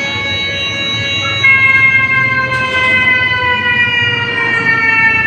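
Whelen WPS-2908 electronic speaker siren sounding its Alert tone, one loud pitched note with many overtones. About one and a half seconds in it grows louder and its pitch begins to slide slowly down.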